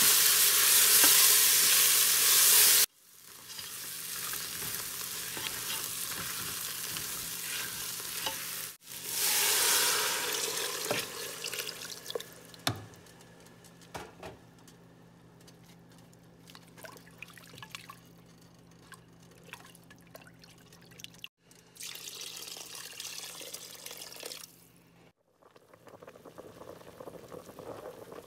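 Lamb neck and shank pieces sizzling loudly as they sear with onions in a steel pot and are stirred and turned, in short clips separated by sudden cuts. Later the sizzle gives way to quieter bubbling broth with a few clicks of a spoon against the pot, over a steady low hum.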